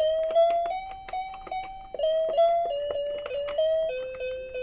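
Piano playing a simple melody of single notes, about three notes a second.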